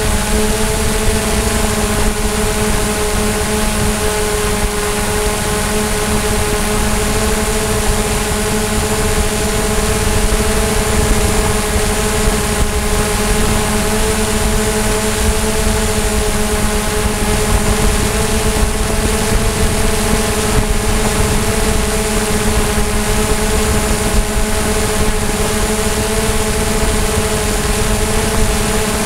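DJI Mavic quadcopter's motors and propellers humming steadily in flight: a constant hum of several fixed tones over a hiss, holding the same pitch throughout.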